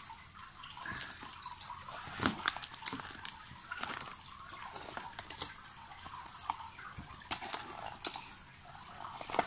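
Plastic packaging rustling and crinkling as phone-box contents are handled and unwrapped, with many small scattered clicks and taps.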